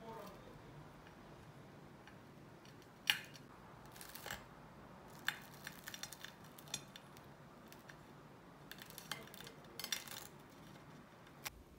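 Metal butter knife spreading thick ricotta cheese on slices of bread, pressed down firmly: faint scattered scrapes and light clicks of the knife against the bread and plate, the sharpest about three seconds in.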